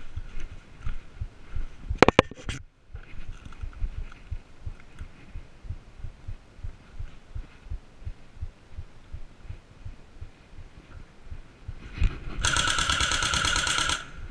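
Airsoft electric rifle firing one full-auto burst of about a second and a half near the end, a fast even buzzing rattle. Before it, low irregular thumps of footsteps and movement, and a quick cluster of sharp clicks about two seconds in.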